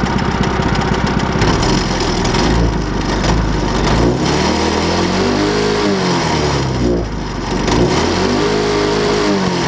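Go-kart engine running and being revved, between about 1,900 and 3,100 rpm. Its pitch rises and falls twice in the second half.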